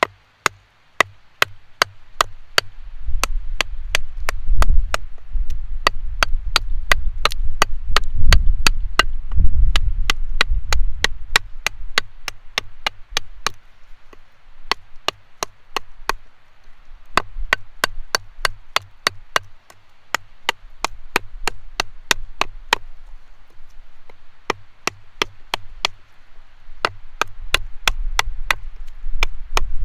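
Habilis Bush Tool bushcraft knife chopping through a branch about 1.5 to 2 inches thick: a long run of sharp chops into wood, two or three a second, with a couple of short pauses.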